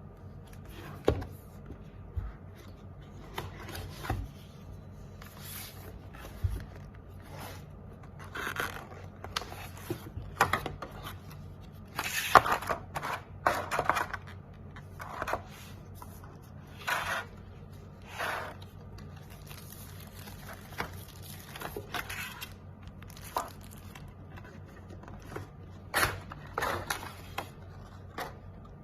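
Irregular scrapes, rustles and clicks of a mechanical keyboard and its parts being handled, a few seconds apart and uneven.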